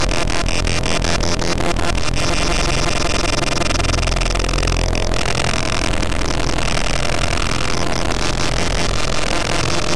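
Harsh power-electronics noise music from a SunVox modular synth patch with a feedback module: a dense, loud wall of distorted noise with a heavy low rumble and rapid stuttering clicks, the clicks thickest in the first couple of seconds.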